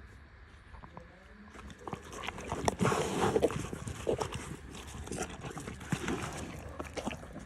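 Murrah buffalo moving about, with irregular knocks and scuffs starting about two seconds in.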